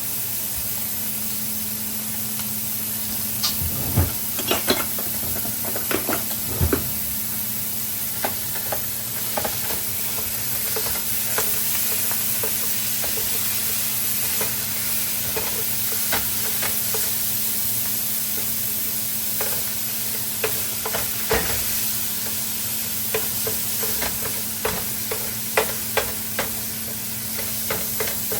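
Ground beef sizzling in a hot frying pan, with frequent short clicks and scrapes of a utensil against the pan as it is stirred and broken up.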